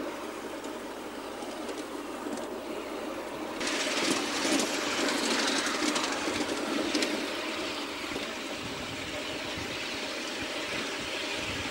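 Ride-on miniature live-steam locomotive running along ground-level track, a steady noisy sound that gets louder about three and a half seconds in.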